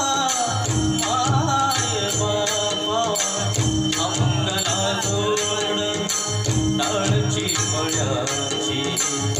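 Instrumental introduction to a Marathi devotional song to Vitthal: a melody line with gliding, ornamented phrases over a steady percussion beat.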